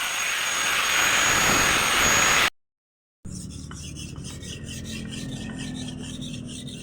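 A power grinder running with a steady high whine, cut off abruptly about two and a half seconds in. After a short silence comes a quick, even series of rasping strokes: a knife blade being sharpened by hand.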